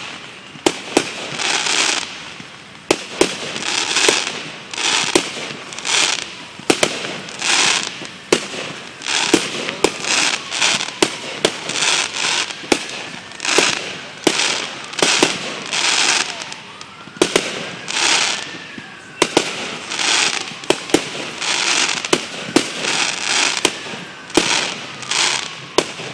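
Fireworks going off in quick succession, about one a second: sharp bangs, each followed by a short burst of hissing crackle, with a few faint whistles gliding up and down in the middle.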